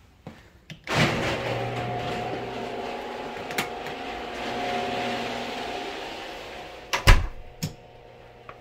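A steady machine hum with a hiss starts abruptly about a second in and slowly fades. Near the end come a sharp, loud knock and a lighter one, typical of a door swinging shut and latching.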